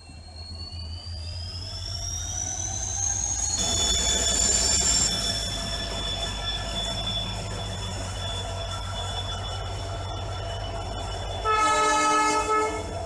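WDP4D diesel locomotive with its EMD 16-710 engine running under power: a low rumble and a high turbocharger whine that rises in pitch over the first few seconds, then holds steady as the sound grows louder. About a second and a half before the end, one loud air-horn blast lasts about a second.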